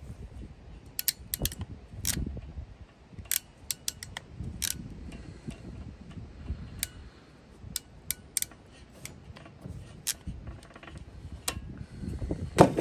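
Hand crimping tool clicking as it squeezes a metal contact pin onto the end of a solar panel cable: a run of sharp, irregular clicks, with a louder knock near the end.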